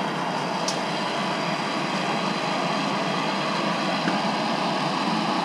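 Handheld gas torch flame burning steadily on a copper pipe fitting, a constant rushing hiss, heating the joint so the solder is drawn in. A brief click about a second in.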